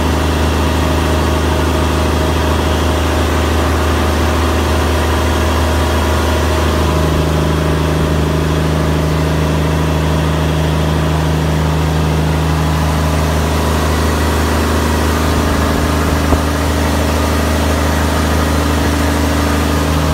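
Fishing boat's diesel engine running steadily in the engine room, a loud, even low drone. A second, higher steady hum joins about a third of the way through.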